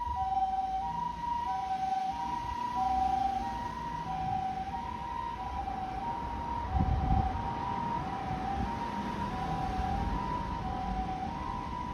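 Japanese ambulance siren sounding its two-tone hi-lo 'pee-po' call, with high and low tones taking turns about two-thirds of a second each. A low vehicle rumble swells about seven seconds in.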